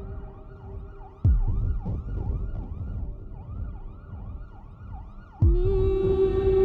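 Film soundtrack: a siren-like warbling tone repeating about three times a second over a low rumble, struck by two deep booms, about a second in and near the end. With the second boom, a sustained droning chord begins.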